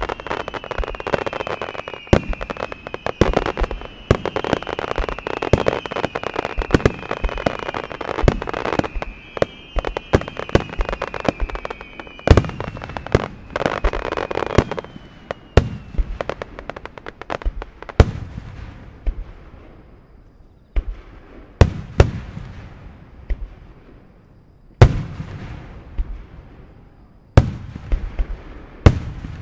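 Extra-large starmine, a rapid-fire barrage of aerial firework shells: for about the first half, dense bangs pile up over a crackling hiss, with repeated whistles that fall slightly in pitch. In the second half it thins to single heavy booms every two to three seconds, each with a trailing rumble.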